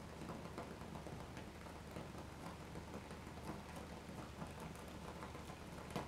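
Egg frying in oil in a frying pan: faint, irregular crackling and spitting of the hot oil.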